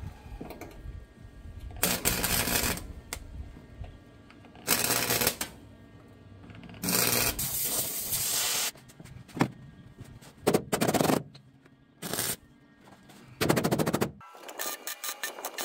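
Welding arc crackling in seven short bursts of about half a second to two seconds each, with pauses between: tack and stitch welds going onto the sheet-steel floor patches of a 1948 Willys Overland truck cab. A run of quick ticks follows near the end.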